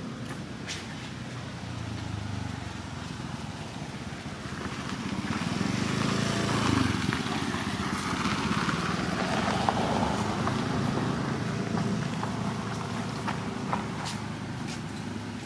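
Outdoor background noise with a motor vehicle going by, swelling toward the middle and easing off again.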